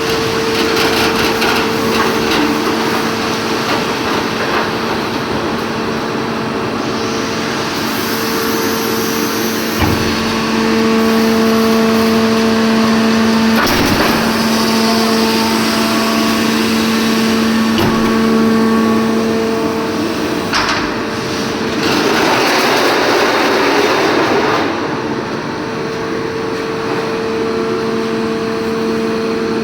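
Corrugated steel plate forming and welding line running: a steady electrical hum over machine noise, with a few sharp knocks and a brief hissing stretch about three-quarters of the way through.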